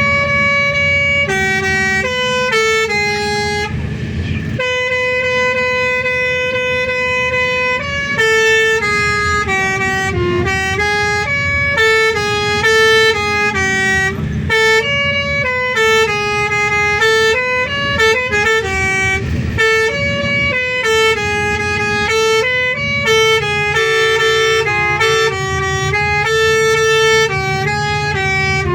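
A bus's telolet horn, a multi-tone musical horn, plays a tune of stepped notes without pause. Most notes are short, one is held for about three seconds, and a steady low rumble runs underneath.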